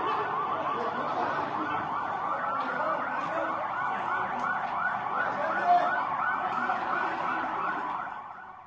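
Police siren yelping in a fast rising-and-falling cycle, about three times a second, recorded on a phone. There is a short sharp blip a little past halfway, and the siren fades out near the end.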